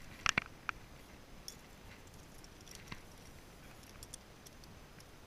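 Small metallic clicks as two spinnerbaits are handled, their wire arms and blades knocking together: a quick cluster of sharp clicks about a third of a second in, then a few faint scattered ticks.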